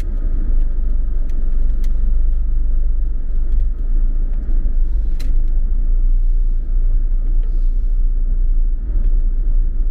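Low, steady rumble of engine and road noise heard from inside a moving car's cabin, with a few light clicks, the sharpest about five seconds in.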